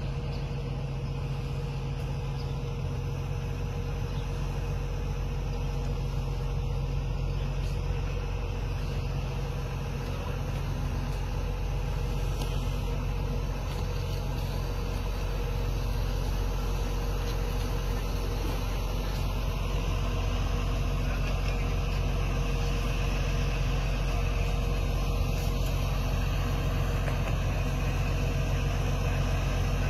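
A vehicle engine running steadily: a low hum with a few steady tones above it, growing slightly louder in the last third.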